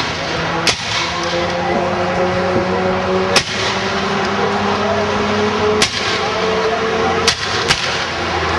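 Civil War–style muzzle-loading rifle-muskets fired one at a time in irregular succession, five sharp black-powder reports, the last two close together near the end. A steady hum runs underneath.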